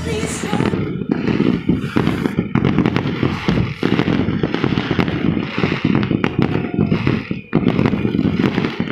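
Dense barrage of firecrackers and fireworks going off: a continuous crackle of many overlapping bangs, with a brief lull about seven and a half seconds in.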